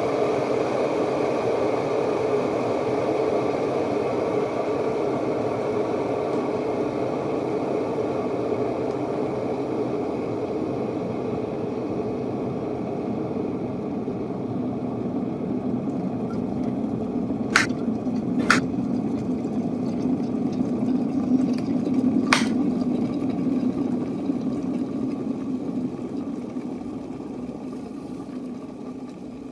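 Electric kettle heating water toward the boil: a steady rushing noise with a few sharp clicks around the middle, dying away near the end.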